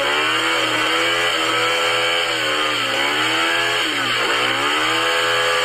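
Engine revving, its pitch dipping and climbing again about three times as it goes, cutting in and out abruptly like a dubbed-in motor sound.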